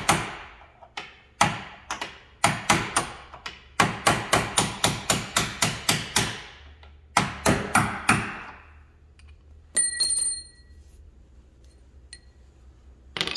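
A small hammer tapping a steel punch to drive out a pin, in bursts of sharp strikes, at times about four a second. About ten seconds in there is a short bright metallic ring as steel lands on the concrete floor.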